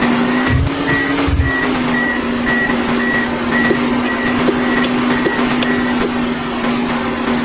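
A vehicle's reversing alarm beeping about twice a second over a steady engine hum, the beeping stopping about six seconds in.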